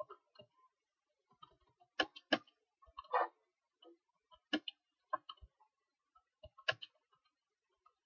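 Faint, scattered clicks of a computer keyboard and mouse, about eight single clicks spaced irregularly, the first about two seconds in and the last near seven seconds.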